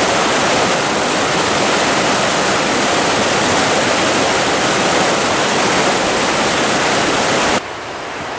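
Whitewater mountain creek rushing over rocks and rapids, a loud steady rush of water. It cuts off abruptly near the end to a much quieter hiss.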